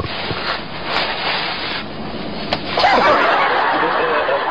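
People laughing inside a moving car, over the steady noise of the cabin; the laughter grows louder and higher about three seconds in.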